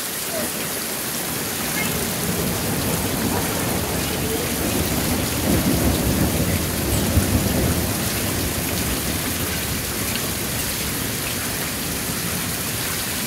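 Steady rain falling, with a long roll of thunder that swells a couple of seconds in, peaks around the middle and rumbles away.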